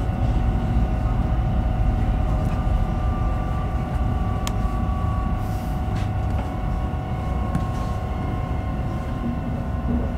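Alstom Coradia Nordic X60B electric commuter train heard from inside while running: a steady low rumble of the wheels on the track, with a constant whine over it that drops slightly in pitch and a few faint clicks.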